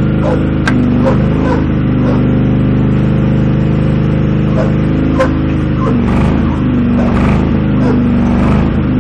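Riding lawn mower engine running steadily at high throttle while the mower is bogged in mud, its pitch wavering under load in the second half, with a couple of sharp clicks.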